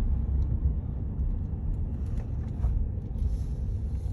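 Steady low rumble of road and engine noise heard from inside the cabin of a vehicle driving along a highway.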